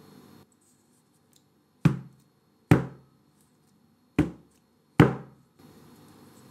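Metal springform cake pan full of sponge batter dropped onto the counter, four knocks in two pairs, each with a short ringing tail. This knocks the air bubbles out of the batter before baking.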